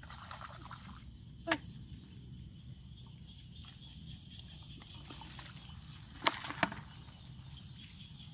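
Hoe digging into wet mud, with sloshing and splashing of shallow water. Three sharp knocks stand out: one about a second and a half in, and two close together near the end.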